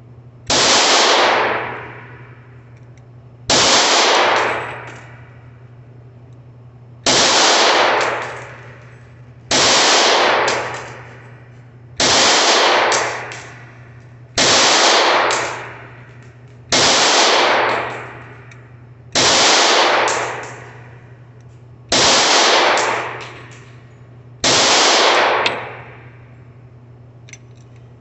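Ten pistol shots from a Smith & Wesson M&P40 in .40 S&W, fired slowly about two and a half seconds apart, each followed by about a second of echo. The defensive loads all feed and fire without a stoppage. A steady low hum sits underneath.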